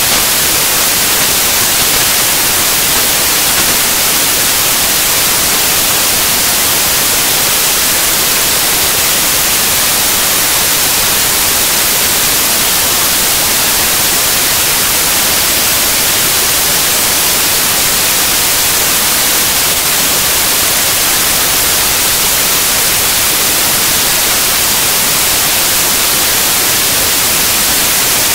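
Loud, steady static hiss like white noise, strongest in the treble, unchanging throughout with no other sound over it.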